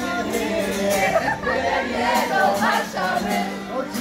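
A crowd of voices singing and calling out together, with an acoustic guitar played underneath.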